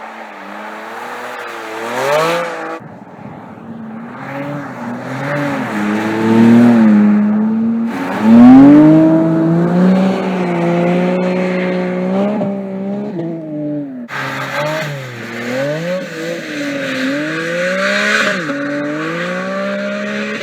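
Porsche 718 Cayman GT4 RS's naturally aspirated 4.0-litre flat-six revving up and down again and again through a drift, its pitch climbing and dropping, with the loudest rise about eight seconds in. Tyres squeal along with the engine in the later part.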